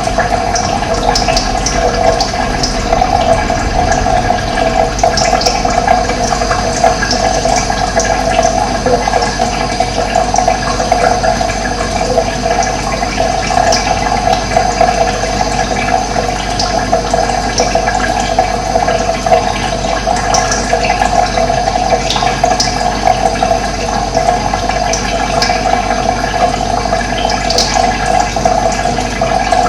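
Running water flowing steadily with an even rush, like a stream or small cascade, with brief high bird chirps now and then.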